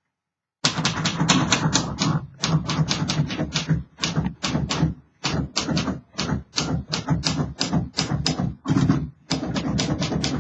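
1949 Royal Arrow manual typewriter being typed on, a freshly refurbished machine in working order: quick runs of sharp key strikes several a second, broken by short pauses, starting about half a second in.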